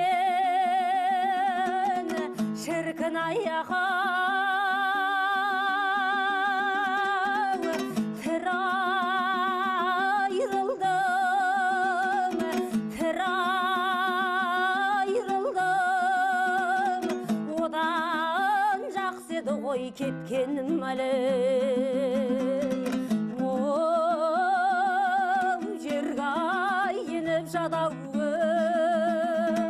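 A woman singing a Kazakh folk song in a high voice, holding long notes with a wide vibrato, over plucked-string accompaniment.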